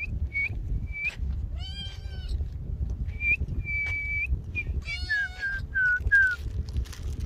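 A cat meowing twice, high-pitched calls about two seconds in and again about five seconds in. Between and around them come many short, high chirping whistles, with a steady low rumble underneath.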